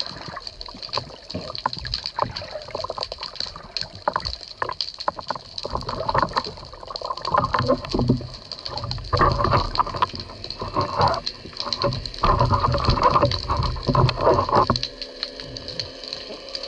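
Water sloshing and churning around a camera held just under the sea surface, with a steady fine crackle of clicks throughout. The water rushes come in irregular surges from about halfway through, as a speared fish is hauled in on its line, and ease off shortly before the end.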